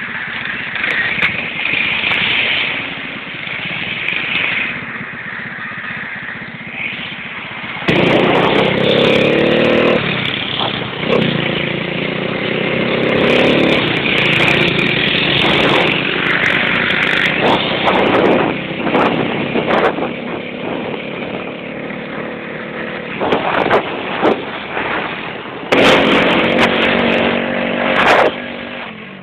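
Motorcycle engine running under way, its pitch rising and falling as it revs, over a steady rushing noise; it gets louder about eight seconds in and again near the end.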